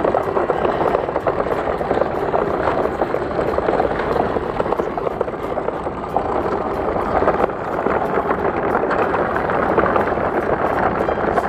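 A toy truck on the move, giving a steady, gritty rattling noise.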